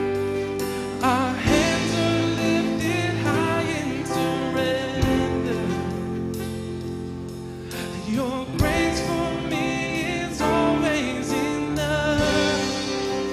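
A live worship band playing a slow song: electric and acoustic guitars strum sustained chords while a woman sings long held lines with vibrato.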